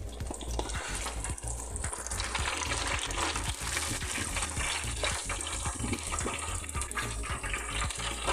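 Battered chicken feet deep-frying in hot oil in an electric deep fryer, the oil bubbling and sizzling with a steady dense crackle.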